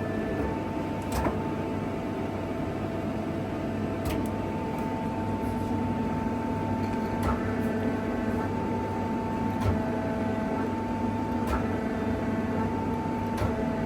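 Takisawa TC-3 CNC lathe running under power, its 15 kW gear-driven spindle drive giving a steady hum with a whine in several tones that shift now and then. A few sharp clicks sound over it.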